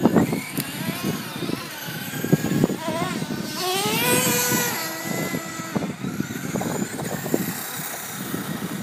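Traxxas RC car's motor whining, rising sharply in pitch as the car speeds up about three seconds in, then running on at speed. A rattling, crackling noise runs alongside it.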